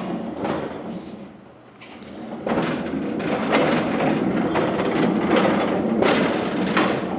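A welder on its wheeled cart being rolled across the shop floor, rattling and clattering from about two and a half seconds in.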